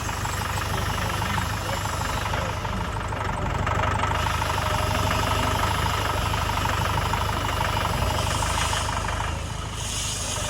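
Farm tractor engine running steadily and getting louder from about four seconds in, as it works to lift a slab of cut concrete.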